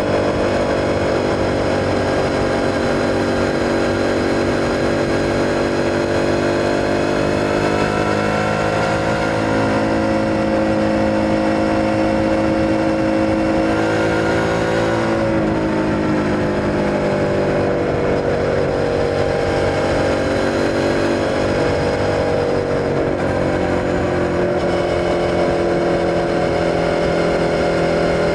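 Suzuki SV650's 645 cc V-twin engine pulling under way on the road, its pitch slowly rising and easing. The pitch drops clearly about halfway through and steps down again near the end.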